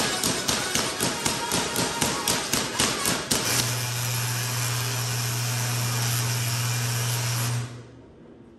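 Large Tesla coil discharging: a rapid train of sharp spark cracks, about four a second. About three and a half seconds in, it changes to a continuous loud buzzing arc with a low hum, which cuts off suddenly near the end.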